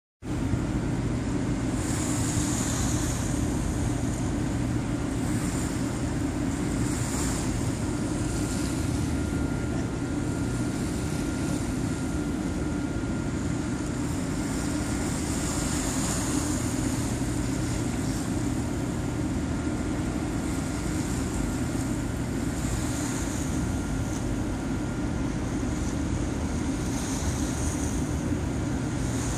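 A ferry's engines running with a steady low rumble, with a faint steady whine above it. Water wash and wind on the microphone swell and fade every few seconds.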